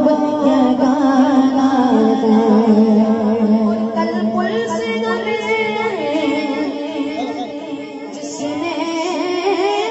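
A young boy singing a naat solo into a microphone, holding long notes that waver and glide, with a run of quick ornamented turns about halfway through.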